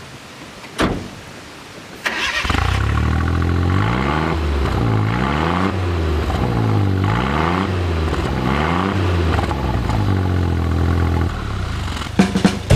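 Suzuki Jimny JA11C's small three-cylinder engine starting about two seconds in, heard at the exhaust, then revved up and down several times. It settles back about a second before music comes in near the end.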